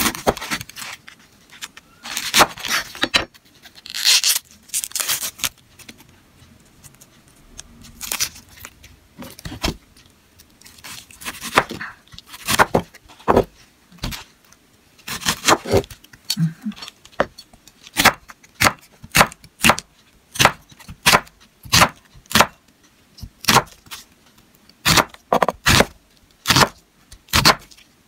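A knife trimming and peeling an onion, the dry papery skin scraping and crackling, then slicing it on a cutting board: a steady run of crisp knife strokes against the board, about two a second.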